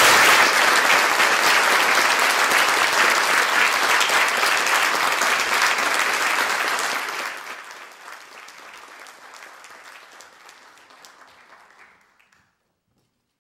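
Audience applauding, full and steady for about seven seconds, then thinning out and dying away to nothing near the end.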